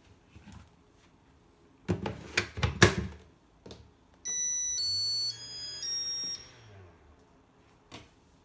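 A cluster of sharp plastic clacks, then a Makita DC18RF battery charger playing its short electronic jingle of stepped beep tones for about two seconds over a low hum that fades out just after it; one more click near the end.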